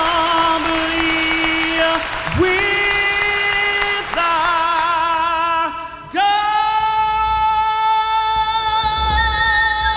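A singer holds long sustained notes with vibrato, sliding up into each one. It ends on a long high note from about six seconds in.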